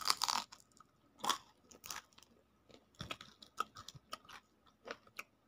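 Crunchy biting and chewing of crispy flour-battered fried tempeh: a loud crunch right at the start, another about a second later, then quieter crunches of chewing every half second or so.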